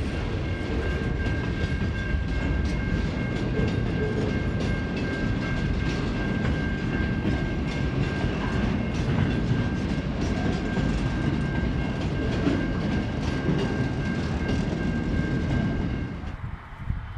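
Freight wagons rolling past, wheels clicking over the rail joints, with a steady high-pitched squeal held over the rolling noise. The sound drops away suddenly near the end.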